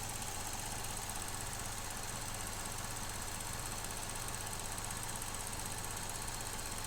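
Vauxhall Corsa E's 1.4 Ecotec petrol engine idling steadily and evenly, which the mechanic calls idling perfect, though it has an intermittent lean-running misfire fault (codes P0171 and P0300).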